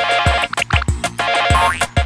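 Upbeat electronic outro jingle with a steady kick-drum beat and sharp percussive clicks.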